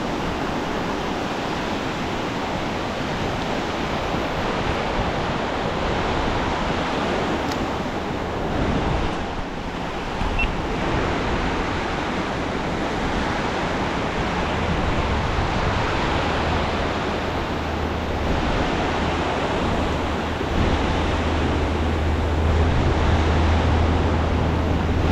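Ocean surf washing onto the beach, a steady rushing noise, with a low rumble joining about halfway through.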